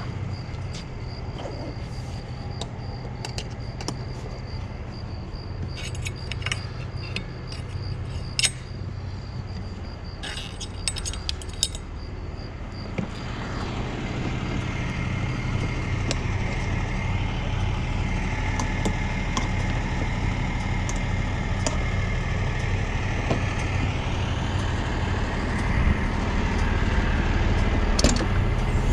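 Truck engine idling steadily, with a run of sharp metallic clinks and jangles about 6 to 12 seconds in; the engine grows louder from about 13 seconds in.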